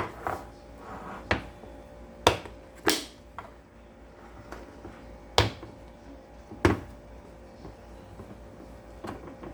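Food packages and containers being handled at an open refrigerator: about six scattered knocks and thuds as items are picked up and set down, over a faint steady hum.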